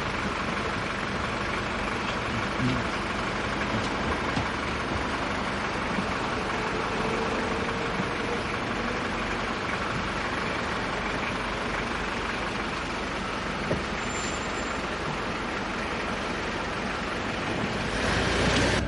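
Steady motor-vehicle and road-traffic noise, swelling louder for about a second near the end as a vehicle passes close by.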